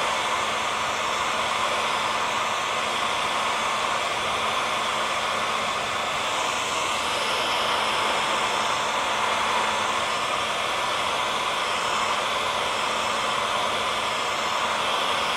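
Hair dryer running steadily: an even rush of air with a faint motor hum underneath, used as white noise to soothe a baby to sleep.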